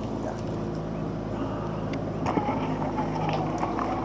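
Electric trolling motor running, a steady hum of several low tones. A little past halfway there is a click and its tone shifts slightly.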